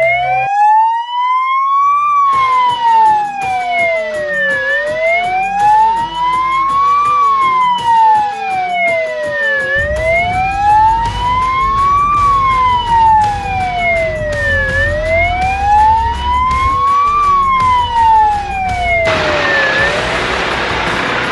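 Fire engine siren wailing, its pitch sliding slowly up and down, one rise and fall about every five seconds. Near the end the wail fades into a broad rushing noise.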